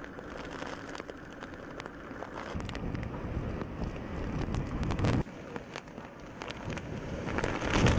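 Typhoon wind gusting and buffeting the microphone, with rain and scattered sharp crackles; the noise drops off abruptly about five seconds in.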